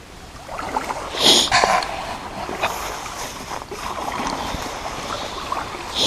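A person wading through a shallow river in rubber boots, the water sloshing and splashing unevenly with each step, loudest about a second in.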